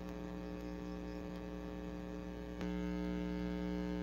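Steady electrical hum with many evenly spaced overtones, stepping up in loudness about two and a half seconds in.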